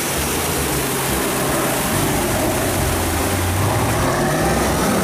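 Off-road Jeep's engine running hard as the vehicle churns through deep mud, under a steady rushing noise. The low engine note grows a little stronger in the second half.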